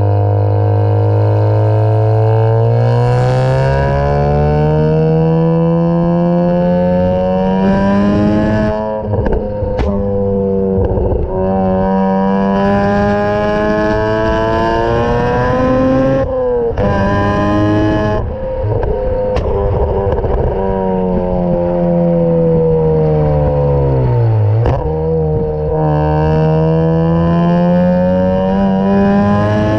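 Mazda RX-8's two-rotor Renesis rotary engine, run through a ToyoSport exhaust with the catalytic converter removed, pulling hard. Its pitch climbs slowly over several seconds, holds high, drops away and climbs again, with a few sharp cracks along the way.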